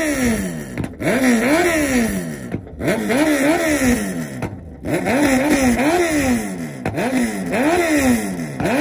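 Suzuki Hayabusa motorcycle's inline-four engine revved hard in repeated throttle blips. The pitch climbs and falls roughly once a second, with brief breaks where the throttle is chopped.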